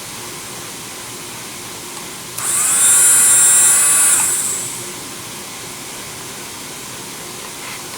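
Electric dental micromotor drill with its handpiece, rated to 30,000 RPM, switched on about two and a half seconds in: it spins up at once to a high-pitched whine, holds for about two seconds, then winds down with falling pitch.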